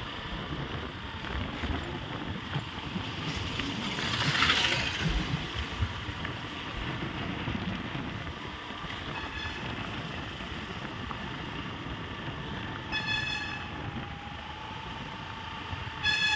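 Riding a motorbike: steady engine and wind noise, swelling for a moment about four seconds in. A horn beeps briefly twice near the end.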